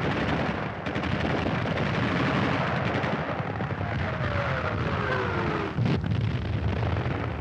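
Battle sound effects: a constant din of gunfire and artillery. About halfway through, a falling whistle ends in a loud explosion around six seconds in.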